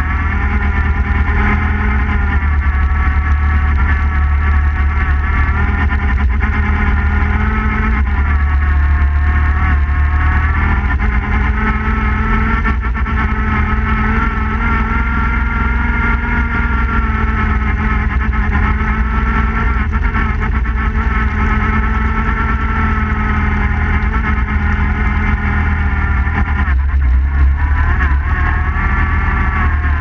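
Suzuki King Quad 750 ATV's single-cylinder engine running at speed while pushing through deep snow, its pitch dipping about eight seconds in and again near the end before climbing back up.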